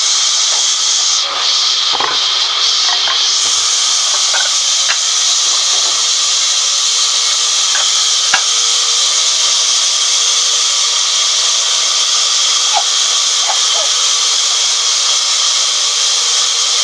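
Sawmill band saw running and cutting through a teak log: a loud, steady, high hiss, with a few small ticks and one sharp tick about eight seconds in.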